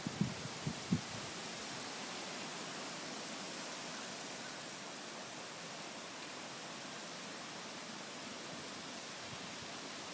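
Steady hiss of wind and light rain outdoors, with a few short low thumps of wind buffeting the microphone in the first second.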